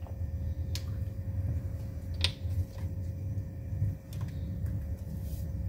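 Steady low rumble of a lit gas burner heating a small pan of coconut oil, with a faint steady hum and a few light clicks, the oil not yet sizzling.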